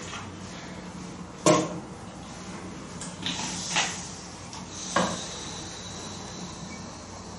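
A few sharp knocks and clacks over a steady low hum: the loudest about a second and a half in, smaller ones a little past three seconds and near four, and another at five.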